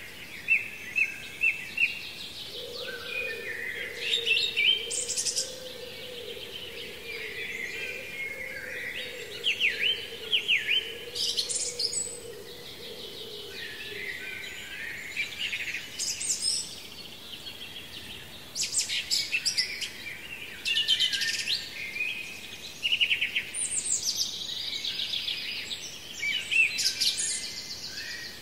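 Several songbirds singing and calling in overlapping chirps and rapid trills. A faint steady low hum runs underneath from about two seconds in until about halfway.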